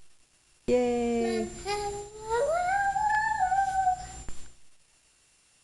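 A child's voice humming and singing a long wordless note: a steady lower tone that glides up to a high, wavering held pitch and stops about four and a half seconds in.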